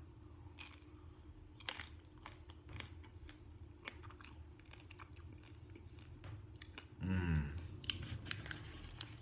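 Biting into and chewing a mint ice cream bar with a crisp chocolate coating, the shell crunching in faint scattered cracks. A short hum from the eater about seven seconds in.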